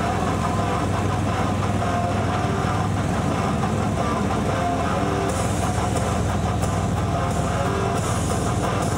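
Steady vehicle running noise, a constant low rumble, with music playing over it.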